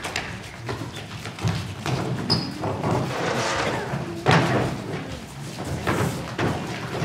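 Irregular thumps and knocks, as of movement on a theater stage, with faint voices in the background and the echo of a large hall.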